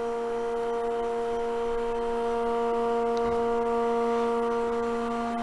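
Steady electric hum at one fixed pitch, with even overtones, from the vacuum pump holding the bowl on a lathe's vacuum chuck.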